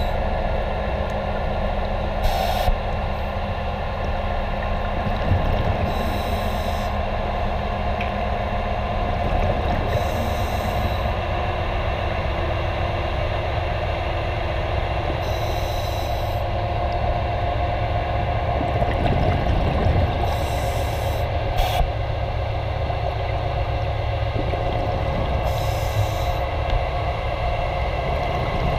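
Steady underwater hum of machinery, with a short hiss of exhaled bubbles from a diver's breathing regulator about every four to five seconds.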